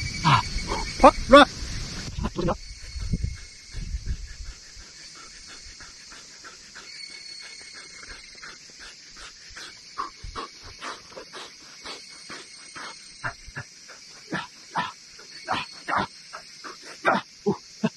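A dog sniffing and snuffling close to the microphone in short, irregular puffs that come thicker and louder in the second half. At the very start a man groans with effort.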